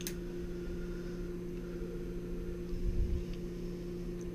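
Steady electrical hum made of two tones, one low and one an octave above. A single sharp click comes right at the start, and a dull low bump about three seconds in.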